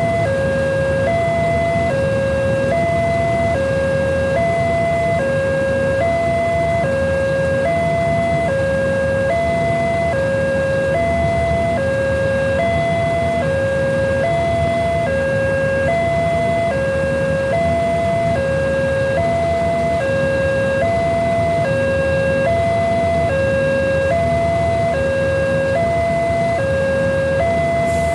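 Electronic level-crossing warning alarm sounding a steady two-tone alternation, a higher and a lower note each held about two-thirds of a second, repeating without a break, over a low steady engine rumble.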